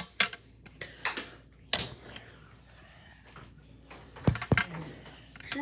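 A few scattered sharp clicks and knocks, a couple close together near the start, one louder knock a little under two seconds in and a pair near the end, with quiet in between.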